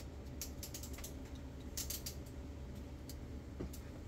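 Small clicks and light taps of metal tweezers working on a Pioneer car stereo's display module and its metal frame, in irregular clusters, over a low steady hum.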